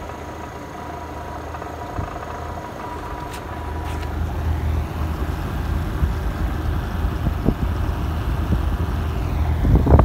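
Vintage 1955 Westinghouse window air conditioner running on high, compressor and fan both on and cooling: a steady low mechanical hum with a faint thin whine, growing louder after a few seconds as the microphone moves down toward the compressor. A loud rumbling burst of noise comes near the end.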